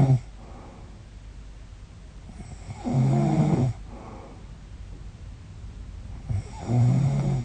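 A woman snoring loudly in her sleep: two snores about four seconds apart, each under a second long, with quieter breathing between. It is snoring that she suspects may be a sign of sleep apnea.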